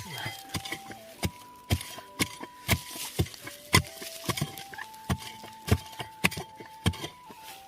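A hoe striking repeatedly into the ground to dig out a winter bamboo shoot, a run of sharp, irregular chops about two a second.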